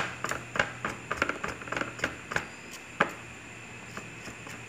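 Hands rubbing and plucking the hair off a goat leg that has been scalded in hot water, with irregular small clicks and scrapes several times a second. The hair is coming away easily after the scalding.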